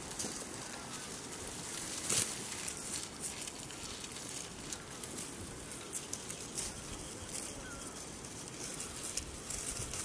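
Dry wheat stalks rustling and crackling crisply as the crop is handled at harvest, with one sharper crackle about two seconds in. A few faint, short bird chirps come through.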